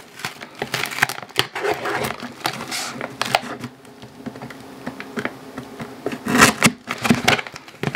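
A cardboard shipping box being handled and opened: irregular scrapes, taps and rustles, loudest about six to seven seconds in.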